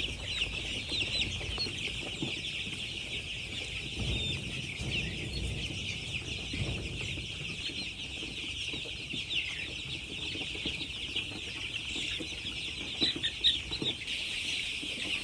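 A flock of chickens calling at once: a dense, continuous chorus of many overlapping clucks and cheeps, with a few louder calls near the end.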